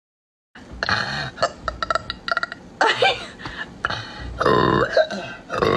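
A young woman belching several times in a row, starting about half a second in, with the longest, loudest belch near the middle.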